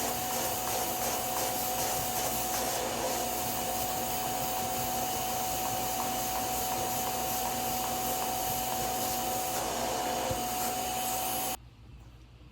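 Bissell Little Green Max Pet portable spot cleaner running, its suction motor giving a steady whir with a high whine. It cuts off abruptly near the end.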